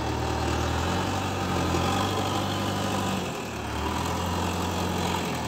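JCB 3DX backhoe loader's diesel engine running steadily, its engine note shifting in pitch a few times as the machine works.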